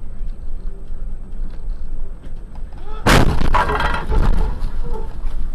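A sudden loud crash of a vehicle collision about three seconds in, followed by about a second and a half of clattering debris, over the steady low rumble of the vehicle driving.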